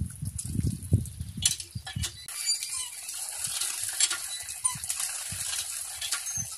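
Water gushing from the spout of a cast-iron hand pump and splashing onto the ground as it is pumped, with low thumps in the first second or so.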